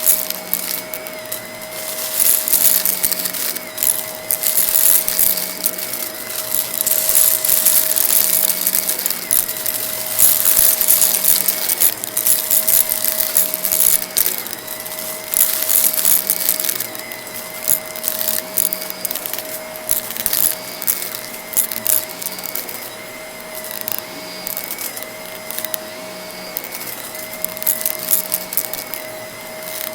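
Vacuum cleaner running steadily with its motor whine, while small bits of debris crackle and rattle as they are sucked up off a rug, the crackling coming and going from pass to pass.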